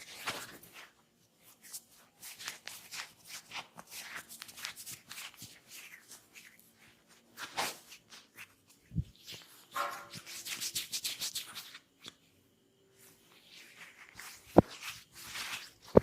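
Massage percussion: irregular quick taps and pats on the body, with a fast run of taps about ten seconds in. One sharp, much louder crack or knock comes near the end.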